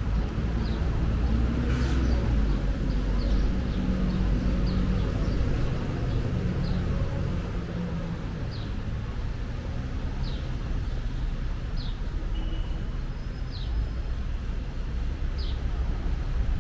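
A motor vehicle's engine running as it passes, a steady low rumble that is heaviest in the first half. Over it a bird chirps steadily, short high notes falling in pitch, roughly one a second.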